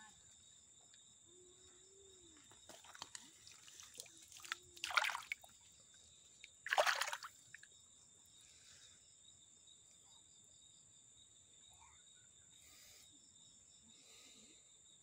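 Two short splashes about two seconds apart as a hand dips into shallow stream water among Cryptocoryne plants, with smaller light splashing and dripping just before.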